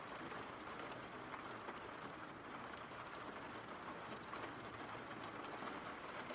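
Steady rain falling, a faint even hiss with scattered soft drop ticks.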